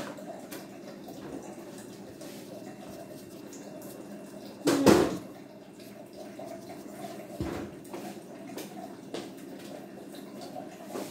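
Pots and kitchen utensils knocking over a steady background hiss, with one loud clank about five seconds in and a few lighter knocks afterwards.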